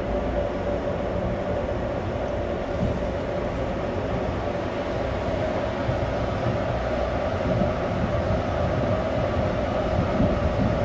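Steady mechanical drone of a cruise ship's engines and machinery heard from its open deck: a constant hum over a low rumble.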